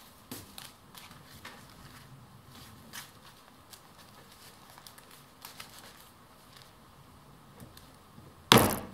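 Paper bags rustling and ticking as a stack is handled and lined up in a hole punch. Near the end comes one loud clack as the sturdy desk hole punch is pressed down through the stack of seven paper bags.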